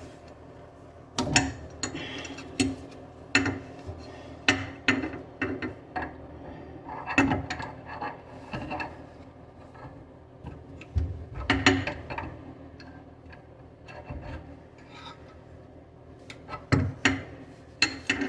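A wrench and plumbing fittings being handled and worked on: irregular clicks, knocks and scraping, with louder knocks about a second in, near the middle and near the end.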